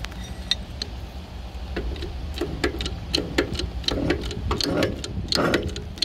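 Hand-pumped bottle-jack shop press working as it presses a new wheel hub bearing into the steering knuckle: a quick series of metallic clicks and short squeaks, coming faster and louder from about two seconds in.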